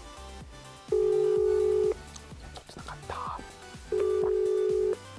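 Japanese telephone ringback tone: two one-second rings of a steady low tone, about three seconds apart, the sign that the line is ringing and waiting to be answered. Background music plays under it.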